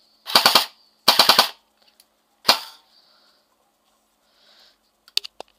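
Airsoft M4 electric gun (AEG) with its stock basic Chinese motor, M100 spring and 7.4 V LiPo battery, firing on full auto: two short rapid bursts of a few shots each, then one more shot about two and a half seconds in.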